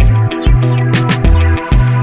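Background music: a steady beat over a bass line that changes note every half second or so.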